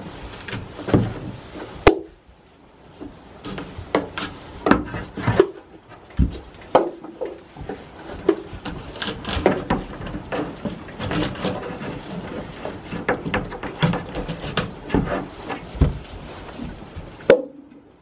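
Goats and a person moving about in a wooden shed: irregular knocks, bumps and rustling as hooves and bodies shift on the straw-covered floor and against the board walls, with two sharp clicks, one about two seconds in and one near the end.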